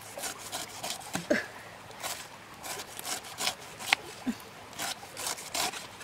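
A cleaver shaving the skin off a whole pineapple: a run of short scraping cuts, two or three a second and unevenly spaced, with a sharper knock about four seconds in.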